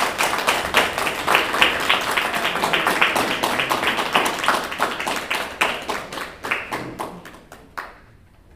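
People applauding with hand claps, thinning out and stopping near the end.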